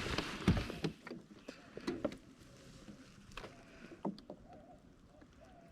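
A small hooked trout splashing and flopping as it is landed and handled, with sharp knocks in the first two seconds and lighter scattered clicks after.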